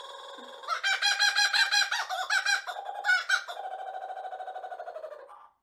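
Laughing kookaburra calling at close range. A steady rolling note breaks, less than a second in, into a loud run of fast, rhythmic laughing notes, then settles into a quieter rapid chuckle that fades out near the end.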